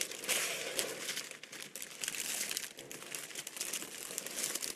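Clear cellophane wrapped around a mesh wreath crinkling and crackling as the wrapped wreath is handled and lifted, loudest around the start and again about two seconds in.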